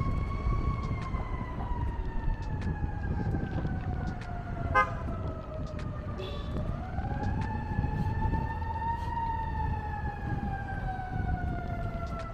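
Emergency-vehicle siren wailing, its pitch falling slowly over several seconds, rising again and falling once more. Under it runs a low, steady rumble of traffic.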